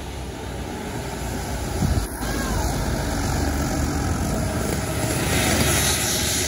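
Road traffic going by close: a large vehicle's engine and tyre noise swelling, loudest near the end, with a short knock about two seconds in.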